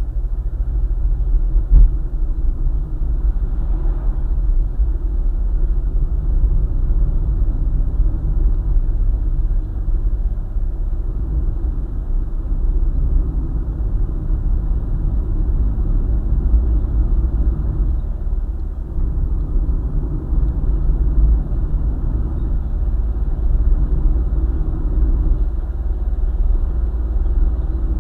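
A car driving along a highway, a steady low rumble of tyres and engine. One brief knock comes about two seconds in.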